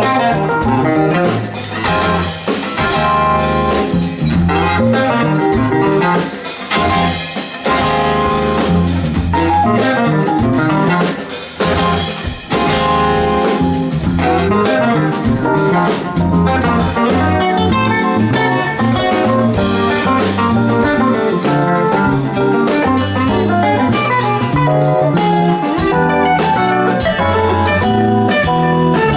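Live rock band playing an instrumental passage: electric guitar leading with fast runs of notes over drum kit and electric bass.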